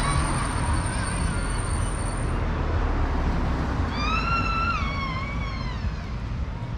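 Street traffic rumbling steadily. A little past the middle, a high whining tone holds for a moment, then slides down and fades over about two seconds.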